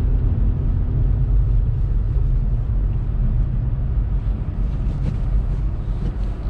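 Steady low rumble of a 2018 Honda Civic Turbo Sport hatchback driving on snowy streets, heard from inside the cabin: engine and tyre noise on mud-and-snow tyres, with a faint engine hum that fades about a second in.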